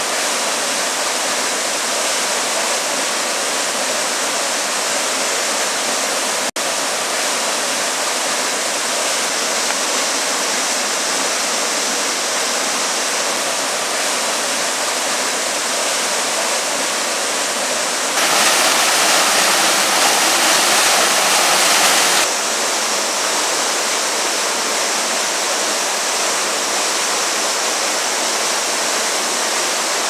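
Steady rushing of a small waterfall and the river tumbling over rocks into a pool. There is a brief drop-out about six seconds in, and the water is louder for about four seconds past the middle.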